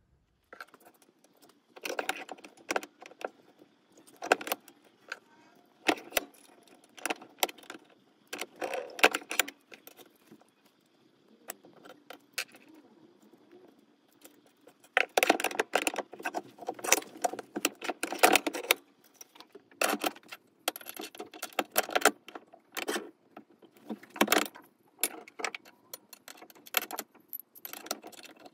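Small steel parts clinking and rattling against pliers and the jaws of a bench vise as they are bent by hand, in irregular bursts of metallic clatter.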